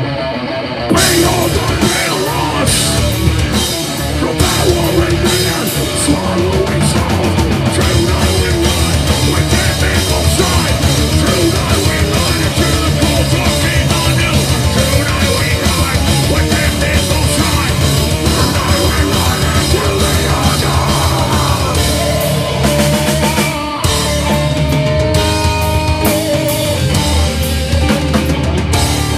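Rock band playing live and loud: electric guitars, bass and drum kit. Guitar alone gives way to the full band crashing in about a second in, and the music breaks off for a moment near the end before the guitars carry on.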